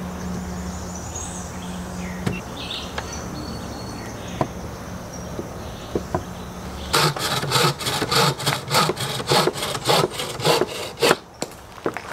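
Small hand saw cutting into a green, freshly pruned branch: quick back-and-forth rasping strokes, about four a second, lasting about four seconds from just past halfway. Before the sawing there are a few light knocks of wood on the table.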